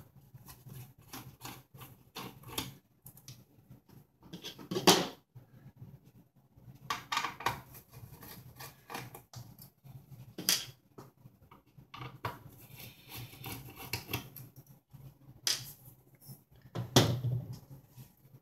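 Screws being worked out of a surge protector's circuit board with a screwdriver, with tools and metal parts handled: a run of light clicks and scrapes with several sharper knocks.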